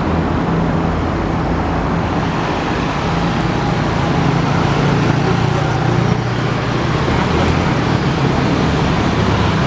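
Road traffic: cars and diesel trucks passing, with a steady low engine drone that swells in the middle and eases near the end.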